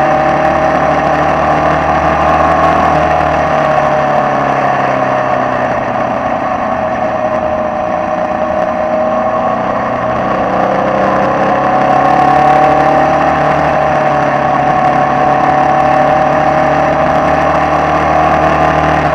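Air-cooled Volkswagen flat-four engine of a Formula Vee racing car at speed, heard onboard. It holds a steady high note that sags slowly through a corner and climbs again about two-thirds of the way in, over a constant rush of wind.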